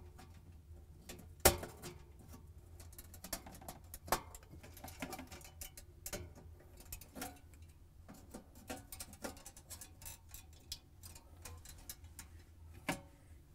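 Needle-nose pliers clicking and tapping against the metal tabs of a refrigerator evaporator bracket as the tabs are bent closed over a new defrost heater. The clicks are faint and irregular, with a sharper one about a second and a half in and another near the end.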